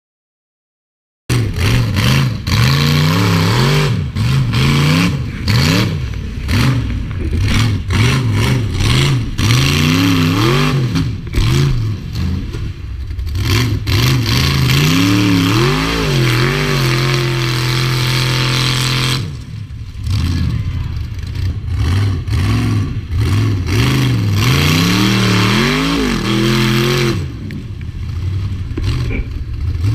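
Rock bouncer buggy engine revving hard in quick throttle blips, its pitch rising and falling again and again, held at high revs for a few seconds past the middle, with a short dip about two-thirds in before the blips resume.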